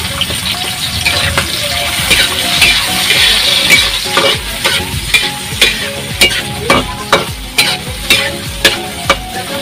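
Chopped clam meat sizzling in a black frying pan while being stirred with a metal spatula. From about four seconds in, the spatula scrapes and knocks against the pan about twice a second.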